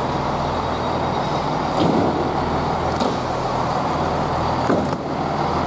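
Chiltern Railways Class 165 diesel multiple unit's underfloor diesel engines idling at the platform, a steady low drone, with a couple of faint knocks about two and three seconds in.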